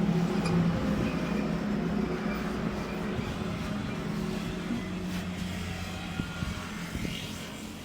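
A steady low mechanical hum over a noisy background, growing slightly quieter toward the end.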